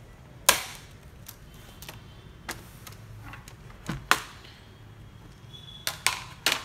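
Plastic bottom cover of a Lenovo ThinkPad E15 Gen 2 being pried off, its snap-fit clips releasing as a series of sharp clicks and snaps. The loudest comes about half a second in, others come around two and four seconds in, and a quick cluster comes near the end as the cover lifts away.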